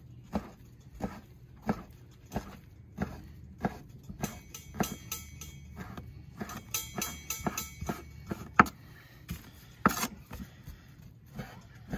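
Chef's knife cutting strip steak into small pieces, its blade knocking on a bamboo cutting board about three times every two seconds. The knocks are sharper near the end.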